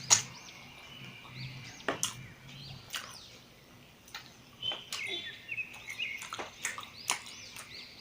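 Close-miked eating of mutton curry and rice: wet chewing with sharp lip-smacking clicks, a dozen or so at uneven intervals, with high chirps in between.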